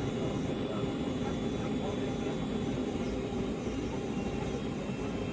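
Steady cabin noise inside a Boeing 757 on the ground with its engines running: an even low rumble with a faint high steady whine over it.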